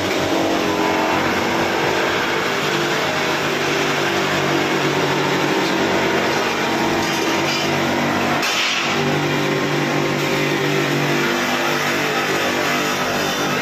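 Electric polishing machine running steadily with a motor hum while a stainless steel pot is held against it to be polished. A brief hiss comes about eight and a half seconds in.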